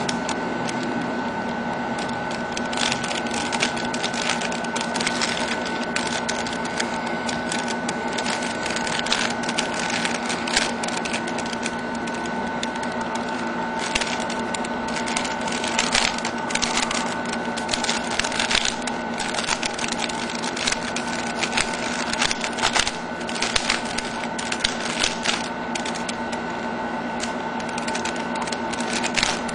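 Plastic mirror (bump) cube being turned quickly by hand: a dense, irregular stream of clicks and clacks from the layers snapping round, over a steady hum.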